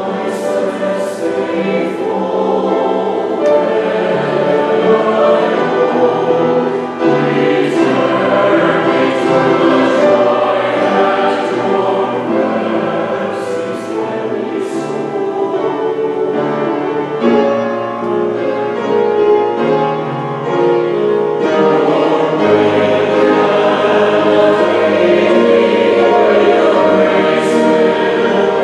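Church choir of men and women singing together.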